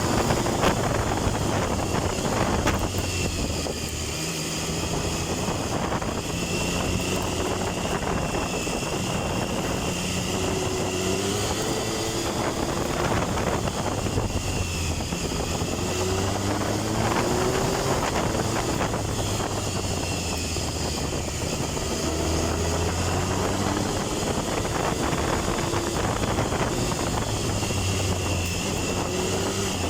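Triumph Tiger 1050's inline three-cylinder engine running under way, its pitch rising several times as the motorcycle accelerates.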